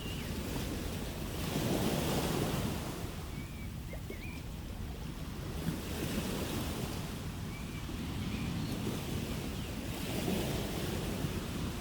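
Ocean waves breaking and washing ashore, a steady surf rush that swells twice, with about eight seconds between the two swells.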